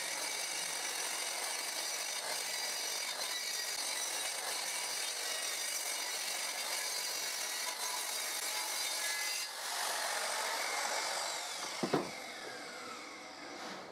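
Handheld electric circular saw cutting lengthwise through a long wooden panel, a steady cutting whine for about nine seconds. The blade then comes free of the cut and winds down with a falling whine, with a single knock about twelve seconds in.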